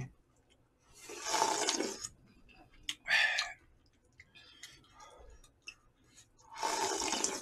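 A person slurping jjamppong noodles and spicy broth: a long slurp about a second in, a shorter one around three seconds, and another slurp near the end as the bowl is raised to drink the broth, with a few light clicks between.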